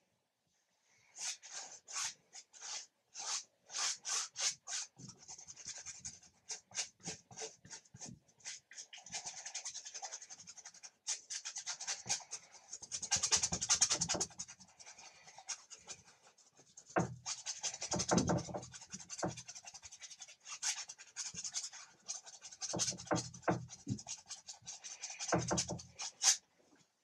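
Paintbrush scrubbing acrylic paint onto canvas: quick back-and-forth strokes, each a short scratchy rasp, with brief pauses where the brush lifts off.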